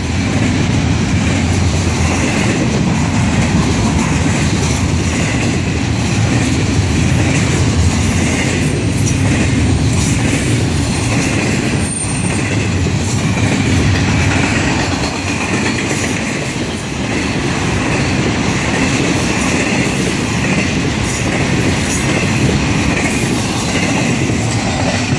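Double-stack container well cars of a long intermodal freight train rolling past at trackside: the steady, loud running noise of steel wheels on the rails, unbroken throughout.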